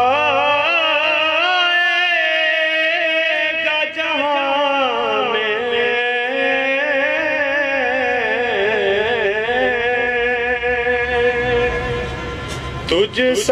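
A man's voice singing an Urdu naat unaccompanied into a microphone, in long held notes with wavering ornaments, with a short break near the end.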